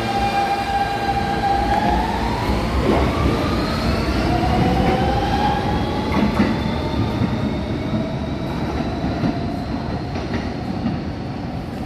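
New York City Subway R160 train accelerating away from the platform: its traction motors whine in several tones that climb steadily in pitch over the rumble and clatter of the wheels on the rails, growing a little fainter near the end as it pulls away.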